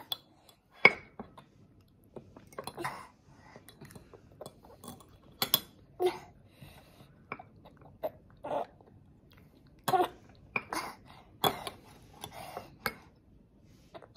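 A toddler eating: sharp clinks of a metal fork against his plate and bowl every second or two, the loudest about a second in, with short throat and mouth sounds from a child with a cold and a blocked nose in between.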